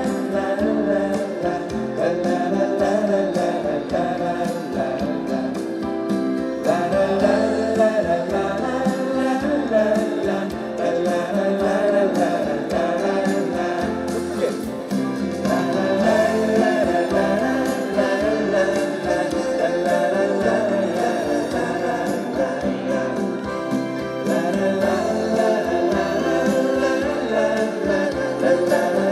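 Live band performing a song, with many voices singing together, the audience joining in a "la la la" singalong.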